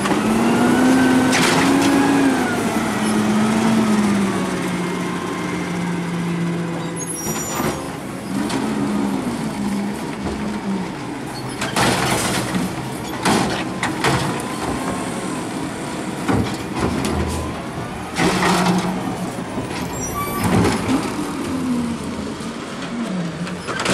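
Natural-gas-powered side-loading garbage truck's engine revving up and down as its hydraulics work. It is broken by several short air-brake hisses and clanks.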